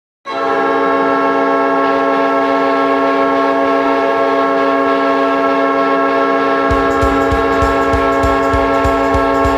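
Hockey arena goal horn sounding one long, loud, steady multi-tone blast. A song's steady drum beat starts under it about seven seconds in.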